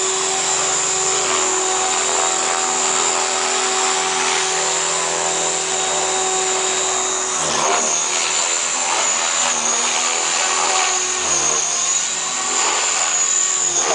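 Align T-Rex 550 electric radio-controlled helicopter flying aerobatics: a steady whine of motor and rotor blades that holds one pitch for the first half, then rises and falls as it manoeuvres from about halfway through.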